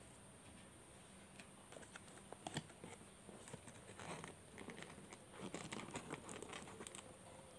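Faint crinkling and rustling of a paperboard burger box handled by hands, in scattered short bursts that get busier about four seconds in.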